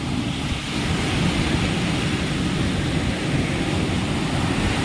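Wind buffeting the microphone: a steady low rushing that swells slightly about a second in.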